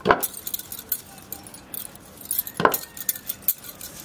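Bangles on both wrists jingling and clicking as hands pinch off and shape stiff dough, with two louder clinks: one at the start and one a little past halfway.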